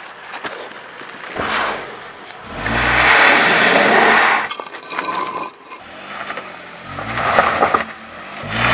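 Car engine revving in three surges, with loose dirt and gravel crunching and scraping under the tyres.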